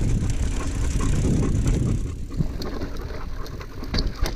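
Mountain bike rolling downhill on a dirt trail: a steady low rumble of tyres on dirt and wind on the microphone, easing off about two seconds in, with the bike rattling and a few sharp clacks near the end.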